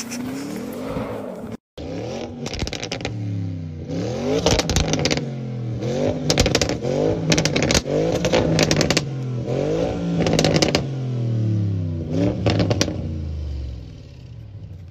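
Tuned Audi RS6 C8 twin-turbo V8 with aftermarket Milltek and Akrapovič exhaust being free-revved while standing: about seven rev blips, each rising and falling, with sharp crackles and pops from the exhaust as the revs drop. It settles to a steady low idle near the end.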